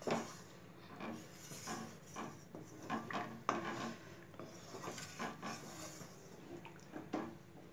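Faint, irregular scraping and tapping of kitchen utensils against a cooking pot, a few light clicks a second with no steady rhythm.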